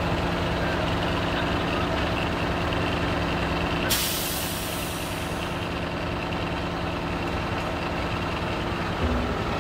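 A large engine running steadily, with a sudden loud hiss about four seconds in that fades away over a second or so.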